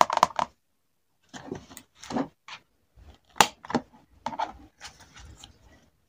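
Close-up handling of a clear plastic ring-binder journal: scattered taps, rustles and clicks of plastic and paper as it is moved and opened. The sharpest click comes about three and a half seconds in.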